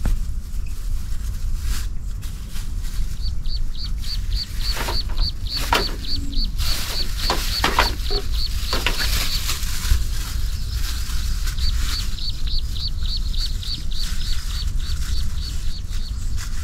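Outdoor ambience: a low steady rumble under a high chirp repeated about four times a second, with a few louder calls in the middle.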